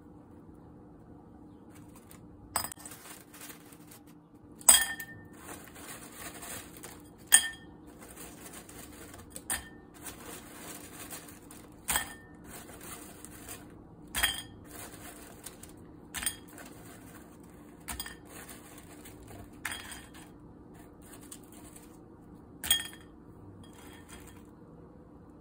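Sharp clinks with a short ring on a ceramic bowl, about ten of them a couple of seconds apart, as crisp fried idly sticks are moved from a stainless mesh strainer into the bowl, with light rustling between.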